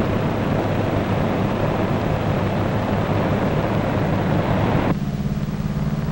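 Piston engines of four-engined propeller bombers running hard on the takeoff roll, a loud rushing engine noise. About five seconds in it cuts off abruptly, giving way to a lower, steadier engine drone.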